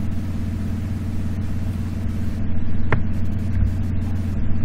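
A steady low mechanical hum or rumble, with one brief sharp click about three seconds in.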